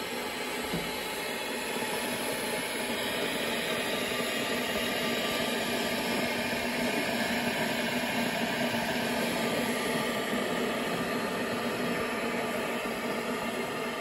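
Stainless-steel Ascot electric kettle heating water: a steady hiss that swells a little about two seconds in.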